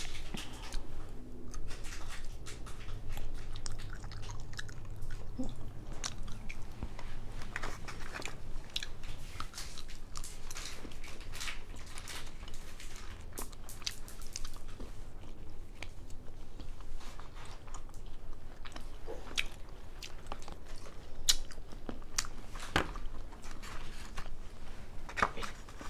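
A person chewing edamame close to a clip-on microphone, with many small mouth clicks and crunches throughout.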